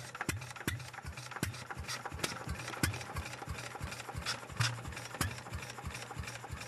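Sendling single-cylinder stationary engine running, a regular beat of sharp knocks, a few a second, over a steady low hum.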